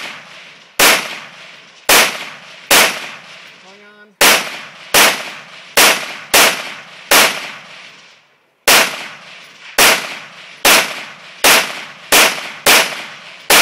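AR-15 rifle fired in a string of aimed shots, roughly one a second, each sharp report trailing off in echo, with two short pauses for new targets. About fifteen shots in all.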